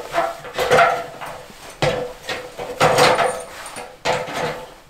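Footsteps climbing the rungs of a metal ladder: about half a dozen uneven knocks and clanks, the louder ones leaving a short metallic ring.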